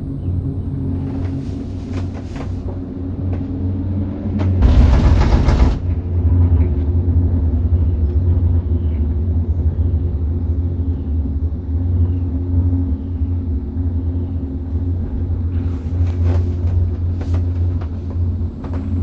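Steady low rumble and hum inside a cableway gondola cabin riding along its cable, with a loud rushing burst about five seconds in that lasts about a second.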